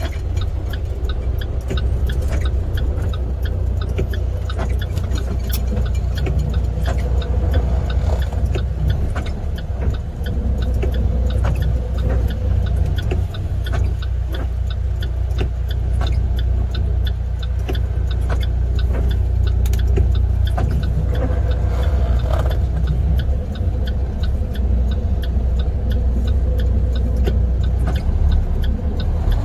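International semi truck's MaxxForce 13 diesel engine running steadily at low speed, heard from inside the cab as a deep rumble, with faint scattered ticks over it.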